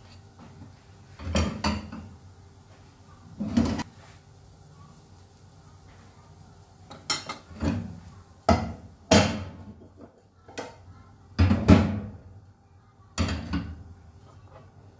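Kitchen clatter: a metal spatula, a frying pan and dishes knocking and clinking as they are handled and set down on a gas stove, about a dozen sharp knocks in loose clusters.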